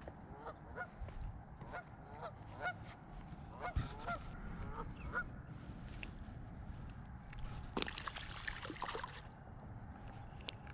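A bird calling repeatedly in short pitched calls, about two a second, for the first five seconds. A brief burst of noise follows about eight seconds in.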